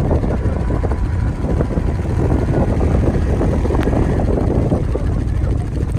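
ATV engine running, a steady dense rumble.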